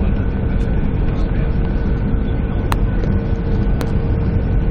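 Boeing 737-800 jet engines heard from inside the cabin: a loud, steady low rumble with a faint steady whine. Two sharp clicks or rattles come in the middle.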